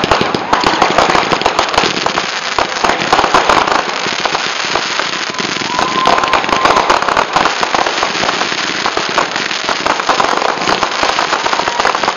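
Fireworks display going off: a dense, continuous spatter of crackling and popping from bursting aerial shells and crackling stars.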